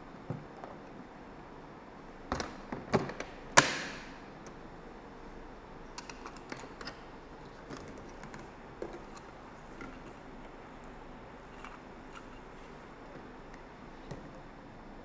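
Scattered clicks and knocks of the hard plastic parts of a Bissell portable spot cleaner being handled and fitted. A cluster of knocks comes about two and a half seconds in and ends in the loudest, sharp snap, followed by lighter taps.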